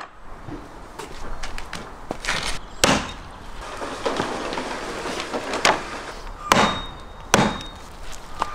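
Lamb being chopped with a blade against wood: four sharp chopping knocks, the last three coming close together in the second half.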